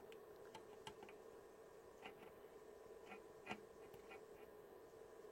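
Near silence broken by about half a dozen faint, short clicks and taps, from handling the small plastic sat-nav and its parts.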